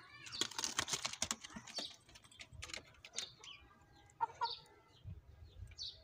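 Birds moving about in a pigeon coop: a quick run of sharp clicks and scratching in the first couple of seconds, then a few short, high chirps and brief calls later on.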